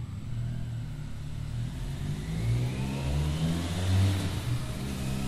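Benelli 502 C's parallel-twin engine through its stock exhaust, running at idle and then revved once: the pitch climbs from about two seconds in to a peak around four seconds, then eases back.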